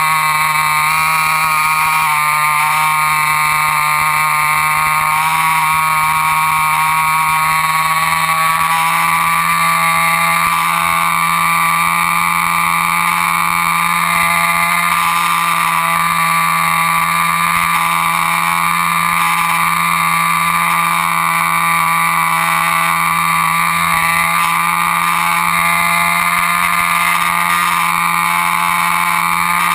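RC airplane's motor and propeller running steadily, a continuous drone whose pitch drifts slightly upward about a third of the way in.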